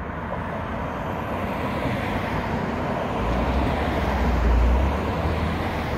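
Steady road and wind noise from a car driving down a mountain road, swelling to a deep rumble about three to five seconds in.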